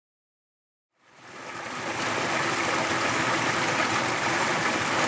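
Running water of a mountain stream swirling in whirlpools, fading in from silence about a second in and then flowing steadily.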